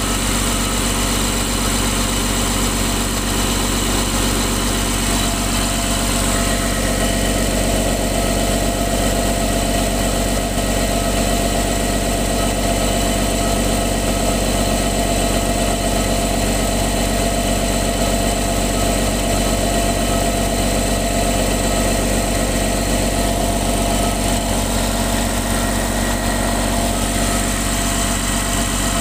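Multi-cylinder diesel engine of a piece of heavy equipment idling steadily. It smokes badly, which the owner puts down to a faulty injector.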